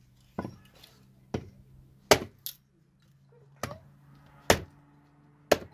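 A hatchet chopping and splitting firewood into kindling: about seven sharp, irregular chops, roughly one a second.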